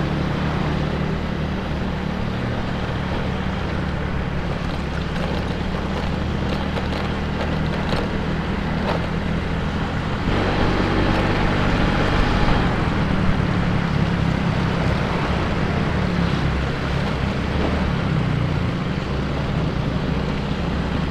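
Yamaha automatic scooter's small single-cylinder engine running steadily at riding speed, heard from the rider's seat, with wind noise on the microphone. About halfway through the noise swells into a louder rush for two seconds or so.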